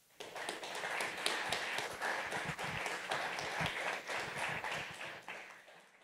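Audience applauding: many hands clapping at once, beginning just after the start and fading out near the end.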